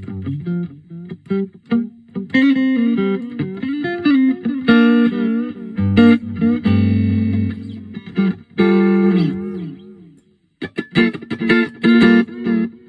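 Electric guitar, a Fender Road Worn Player Stratocaster, played through a T-Rex Reptile delay pedal into a Roland JC-40 amp: picked single notes and chords with the delay on. The playing stops briefly about ten seconds in, then starts again.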